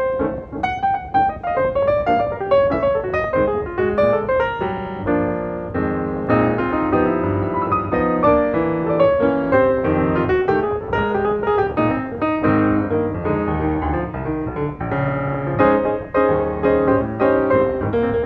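Background piano music with a steady run of notes and chords.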